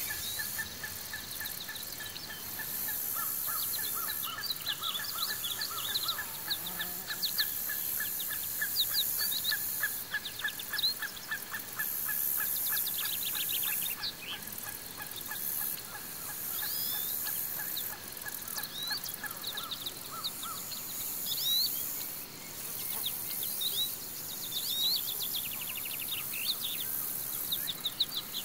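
Outdoor nature ambience: several birds chirping and calling in short sweeps over a steady high insect hiss. A fast, evenly pulsed call repeats without pause through the first two-thirds, then stops.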